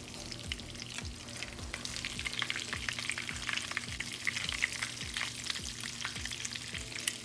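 Hot oil sizzling and crackling steadily with many small pops around breaded fish nuggets shallow-frying in a pan.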